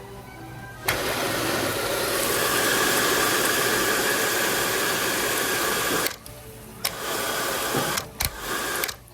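World Dryer SLIMdri hand dryer starting suddenly and blowing steadily, with a faint motor whine over the rush of air, for about five seconds before cutting off. A few short bursts of noise follow near the end.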